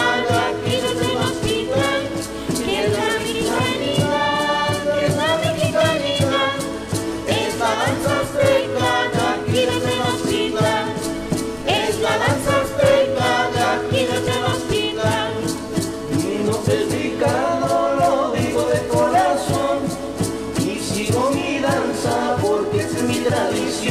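Conchero devotional song: a group of voices singing together over strummed stringed instruments.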